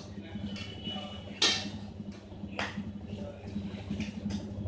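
Godrej top-load washing machine running with a steady low motor hum, broken by three sharp clicks, the loudest about a second and a half in.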